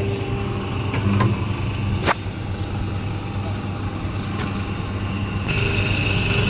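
Double-die paper plate making machine running: a steady motor hum with three sharp clacks as the dies press. A steady high whine joins in near the end.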